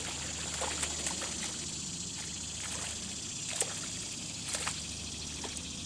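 Faint splashing of a hooked largemouth bass thrashing at the pond surface, with scattered short splashes over a steady outdoor background hiss.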